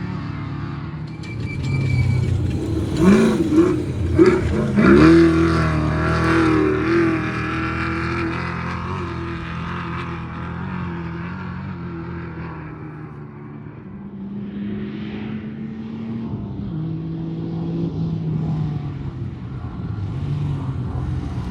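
Off-road race vehicle engines revving hard and passing, with pitch swoops and the loudest bursts from about three to six seconds in, then a steadier engine drone that eases off and builds again near the end.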